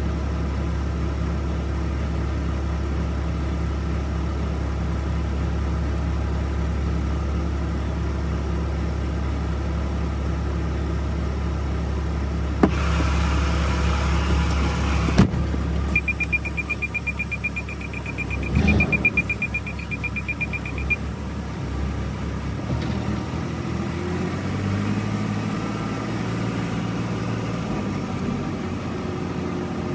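Truck's diesel engine idling steadily, heard from inside the cab. About halfway through there is a hiss of air lasting a couple of seconds, then a rapid high ticking for about five seconds, and the engine pulls away with rising revs.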